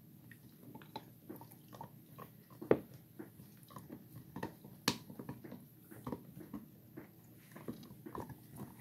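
Golden retriever–collie mix puppies gnawing on hard chew bones: irregular clicks and scrapes of teeth on the bones, with sharper knocks a little under three seconds in and again near five seconds.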